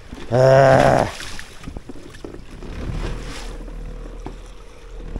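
Small fishing boat on choppy open water: wind on the microphone and water washing against the hull. About half a second in, a man gives one short, loud wordless cry, and from about three seconds in a steady low hum sits under the wash.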